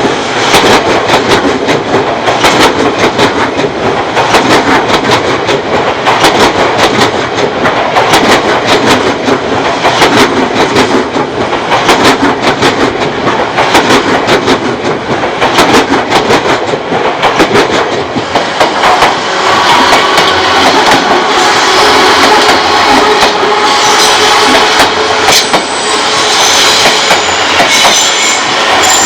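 Odakyu Odawara Line electric train passing over a level crossing: steady running noise of the wheels with rapid, repeated clacks of the wheels over rail joints. After about twenty seconds the clacks thin out and sustained high-pitched tones take over.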